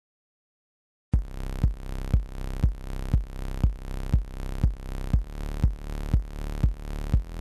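Dead silence for about a second, then electronic background music starts: a kick-drum beat about twice a second over a steady synth bass.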